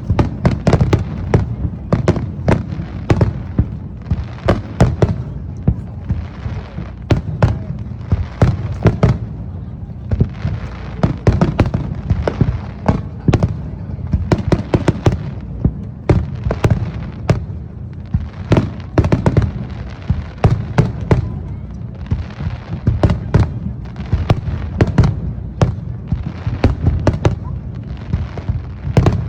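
Aerial fireworks bursting in a rapid, continuous barrage: many sharp cracks and booms a second over a constant low rumble, with crackling stars among them, and no let-up.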